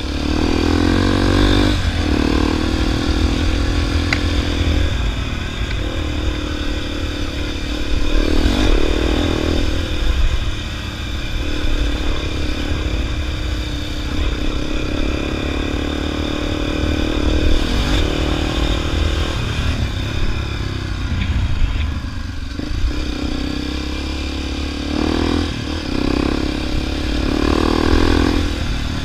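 Motorcycle engine running while riding on a dirt road, its note rising and falling several times with throttle changes, over a steady low rumble.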